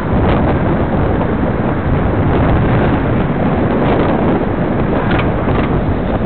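Wind buffeting the microphone of a camera on a moving bicycle, a loud steady rumble, with motor traffic running alongside.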